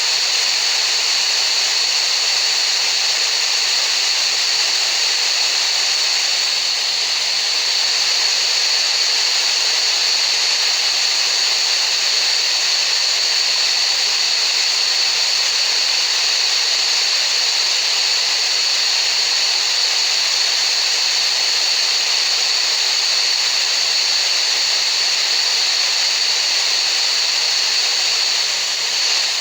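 Steady hissing noise made for masking tinnitus, with a high, even tone running through it.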